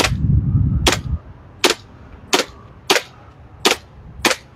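JWC airsoft gas blowback pistol firing seven single shots in steady succession, about one every two-thirds of a second, as the magazine is emptied.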